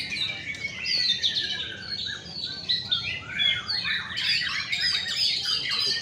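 Many caged white-rumped shamas (murai batu) singing at once, a dense, unbroken tangle of overlapping fast whistles, trills and chirps.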